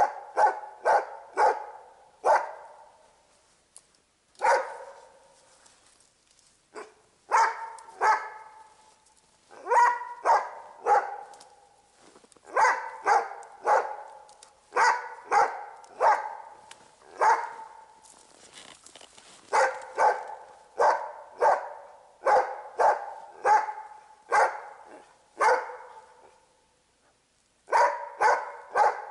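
Hunting dog barking in repeated bouts of two to four barks with short pauses between, baying at a sable it has treed.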